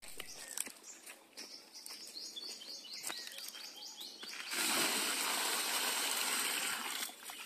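Birds chirping, with a quick run of short repeated notes, over light rustling. About four and a half seconds in, water poured from a plastic bucket gushes steadily onto the ground for nearly three seconds, the loudest sound, and stops just before the end.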